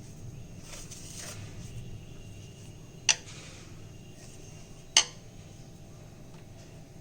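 Two sharp clinks of kitchen dishes or utensils knocking together, about two seconds apart, over a low steady hum.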